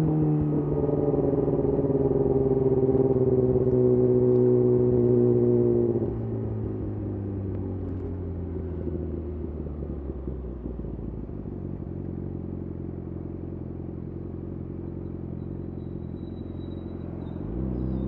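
Yamaha YZF R6 inline-four through a de-cat Akrapovic slip-on exhaust, held on light throttle with the revs easing slowly down. About six seconds in the throttle closes and the note drops and quietens, winding down gradually as the bike coasts, then near the end the revs rise again as the throttle opens.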